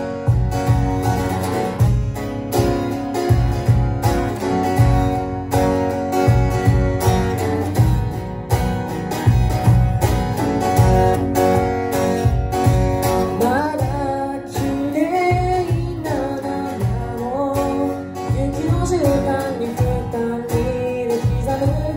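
Acoustic guitar and a cajon playing an instrumental passage of the song, the cajon keeping a steady beat. A singing voice comes in with a melody about two-thirds of the way through.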